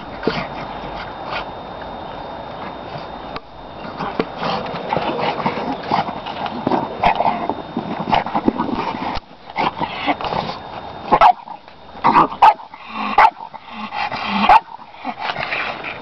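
A dog making noises as it plays with a ball on grass. The sound runs on unbroken through the first half, then comes a run of short, loud, sharp sounds in the last few seconds.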